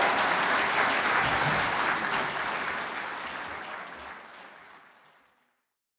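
Audience clapping. The applause fades steadily and dies away to silence about five seconds in.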